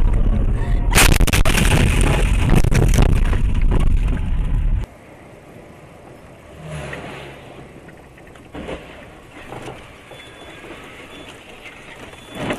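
Dashcam audio of a car driving on a winter road: loud, steady road and engine rumble with a burst of knocks and rattles about a second in. About five seconds in it cuts abruptly to much quieter in-cab vehicle noise with a few brief thumps.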